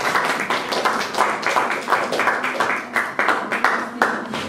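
A small indoor audience applauding, the clapping dying away near the end.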